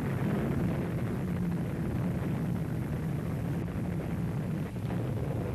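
Steady low rumble of an air-raid soundtrack, aircraft engines and bombardment, with a couple of faint knocks in the second half.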